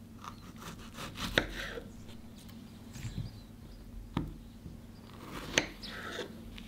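Kitchen knife slicing through fresh strawberries on a wooden cutting board, with three sharp knocks as the blade meets the board and softer cutting sounds between them.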